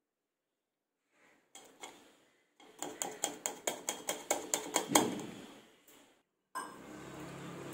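Rapid series of metal taps and knocks, about five a second and growing louder, from a nonstick pan and spoon as the last of the melted jaggery syrup is scraped and drained through a strainer into a steel vessel. Near the end a steady rushing noise starts.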